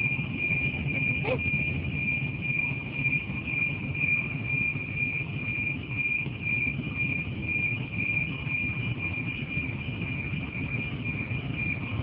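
Railway level-crossing warning siren sounding one steady, high-pitched electronic tone with a slight waver, over a low rumble. It is the odd-sounding early siren of a newly fitted Alkmaar-type crossing, warning of an approaching train.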